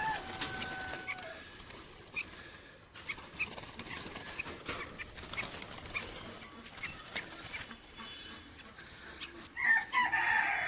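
A rooster crowing, once at the start with the crow's falling end, and again near the end; a few faint short high calls in between.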